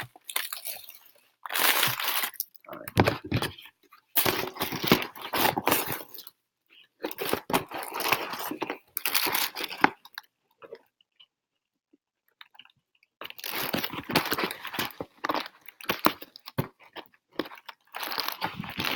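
Bursts of rustling and crunching as something is handled up close, several in a row with a quiet pause about two-thirds of the way through.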